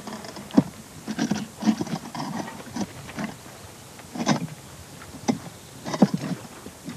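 Lightweight expanded-clay (Leca) blocks being set in place and shifted against one another: a series of irregular dull knocks and scrapes, the sharpest about half a second in and again about six seconds in.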